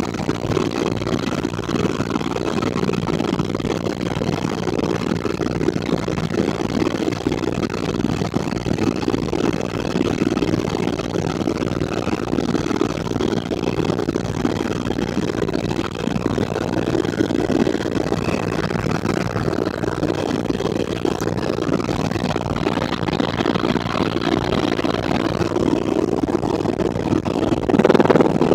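Helicopter turbine and rotor noise heard from inside the cabin: a loud, steady drone that swells briefly near the end.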